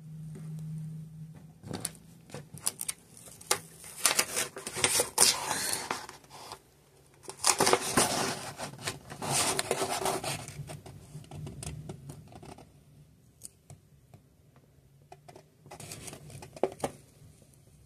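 Wallpaper panels rustling and scraping as they are handled and pressed flat against the wall. The noise comes in two longer spells, about four and about eight seconds in, with scattered ticks and taps between.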